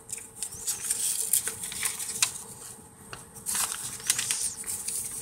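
A sheet of white paper rustling and crackling as it is folded and pressed flat by hand, with irregular short clicks and scrapes against a wooden surface.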